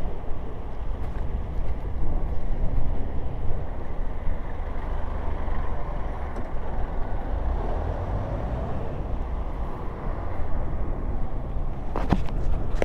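Steady wind rushing over an action camera's microphone, mixed with the rumble of a trottibike's tyres rolling down an asphalt lane. A couple of sharp clicks come near the end.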